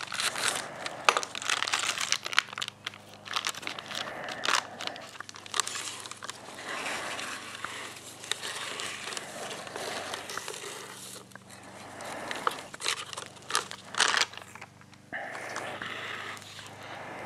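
Bag of Satanite refractory cement being handled and emptied: continuous crinkling and rustling of the bag with many scattered sharp clicks and knocks, over a faint steady low hum.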